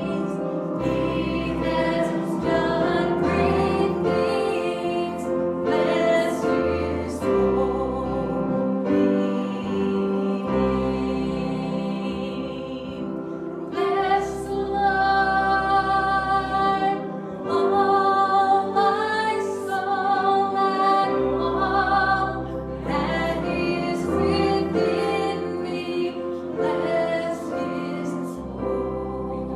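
Music: voices singing a worship song with instrumental accompaniment, long held notes over a bass line that moves every second or two.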